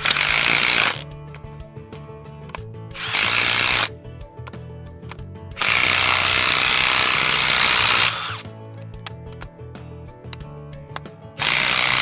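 Milwaukee Fuel cordless impact driver with a 5/8 socket hammering down the shear-head bolts of an insulation piercing connector, in four bursts: short ones at the start and about three seconds in, a longer one of about two and a half seconds in the middle, and another starting near the end.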